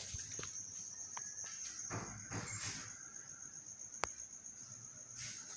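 Cricket trilling steadily at a high pitch. A single sharp click comes about four seconds in, with a few soft rustles around it.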